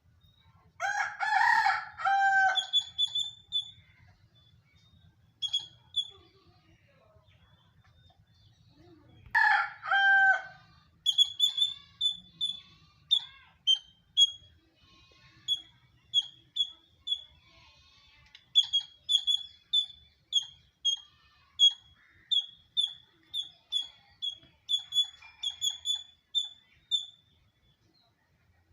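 A rooster crows twice, about eight seconds apart, each crow a long call of about two seconds. Between and after the crows a squirrel gives short, high chirps, which become a steady series of about two chirps a second that runs until near the end.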